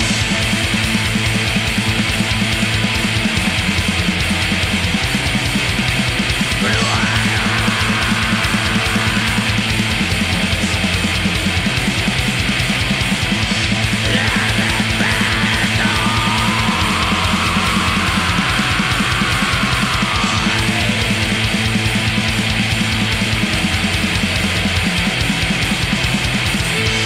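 Black metal: heavily distorted guitars over fast, dense drumming, loud and unbroken.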